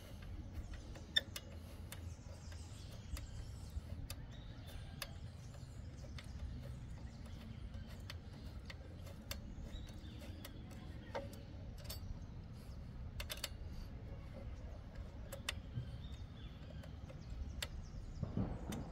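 Allen key working the screws of a metal pedal bracket: faint, irregular small metallic clicks and ticks over a low steady rumble.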